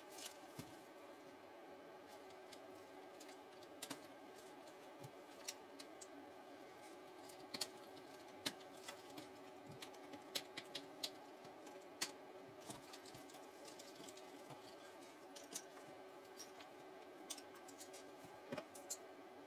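Plastic LEGO Technic pieces clicking irregularly as they are picked from a loose pile and pressed together, over a faint steady hum.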